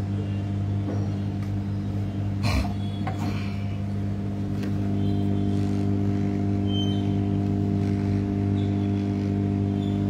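Steady low electrical hum from bench equipment, with a string of even overtones, unchanging in pitch and level. A single sharp click comes about two and a half seconds in.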